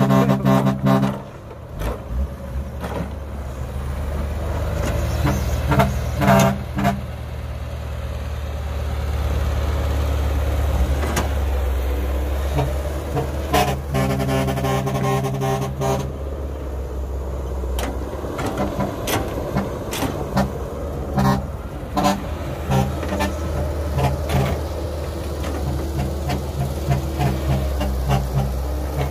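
CAT hydraulic excavator's diesel engine running under load as it digs and loads soil, with scattered knocks and clanks from the bucket and dropping earth. A held, horn-like pitched tone sounds at the start and again around halfway.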